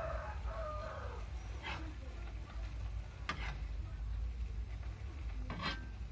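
Perforated metal spatula scraping and knocking against a blackened wok while stir-frying water spinach in boiling broth, with sharp scrapes about one and a half, three and five and a half seconds in, over a steady low rumble.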